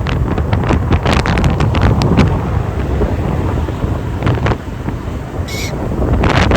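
Wind buffeting the microphone on a moving vehicle, most likely a motorcycle, over a low road and engine rumble, in gusts. A brief high-pitched squeak comes about five and a half seconds in.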